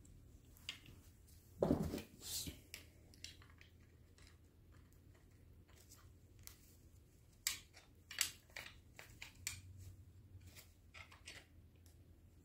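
A drum brake shoe set down with a thud on a plywood tabletop about two seconds in, followed by scattered light clicks and taps of small metal brake parts and pliers being handled.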